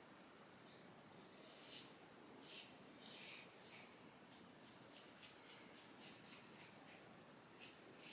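Rockwell 6S safety razor scraping through shaving cream lather and stubble in a series of strokes. There are a few longer strokes at first, then quick short strokes about three a second.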